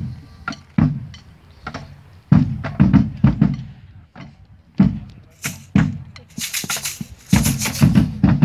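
A drum troupe beating large drums in loud, uneven single strokes that come faster in the second half. A bright hissing noise lies over several of the later beats.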